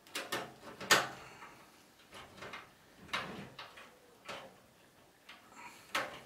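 Irregular clicks and knocks of a case fan being handled and screwed into a PC case. The sharpest knock comes about a second in.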